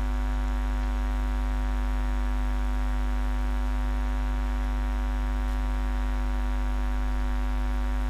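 Steady electrical hum with many overtones, unchanging throughout.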